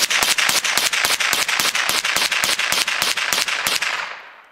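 A bipod-mounted rifle firing a rapid, continuous string of shots, about seven a second, that fades out about four seconds in.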